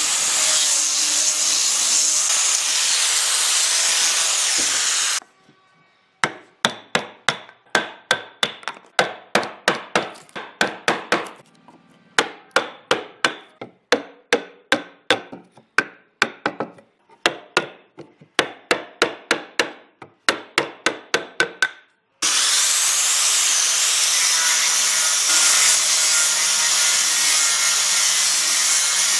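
Woodworking: a steady, even power-tool noise on wood, then rapid hammer blows on wood in quick runs of about four a second for around sixteen seconds, then the steady tool noise again.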